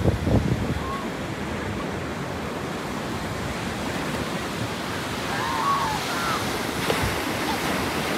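Ocean surf breaking and washing up on a sandy beach, a steady rushing, with faint distant voices calling about five to six seconds in.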